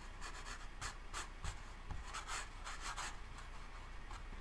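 Watercolour brush stroking and dabbing on a sheet of watercolour paper, as a sap green and burnt sienna mix is tried out on a scrap swatch. There are about a dozen short, faint brush strokes over the first three seconds, then they thin out.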